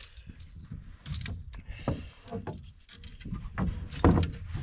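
Clattering and knocking of a landing net and fishing gear being handled in the bottom of a canoe as a netted lake trout is brought aboard, with the loudest knock about four seconds in, over a low rumble.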